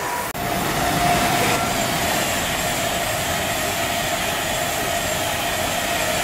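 Avanti West Coast Class 390 Pendolino electric express passing through at speed: a loud, steady rush of wheels on rail and air, with a steady whine running under it. A sudden dropout about a third of a second in marks where the recording cuts in.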